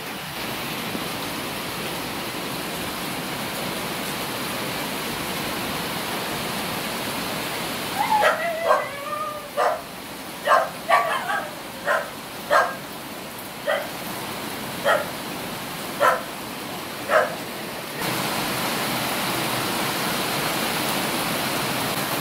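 A dog barking in about a dozen short yips, roughly one a second, starting about eight seconds in, the first few whiny and wavering in pitch. A steady hiss fills the rest.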